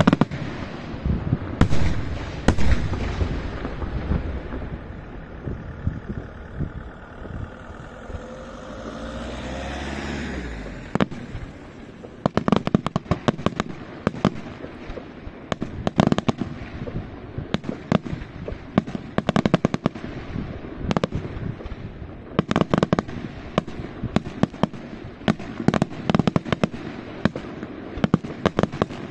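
Aerial fireworks display. A loud shell burst comes right at the start and two more follow in the next few seconds. After a quieter stretch, from about twelve seconds in, rapid volleys of small bangs crackle off in quick clusters.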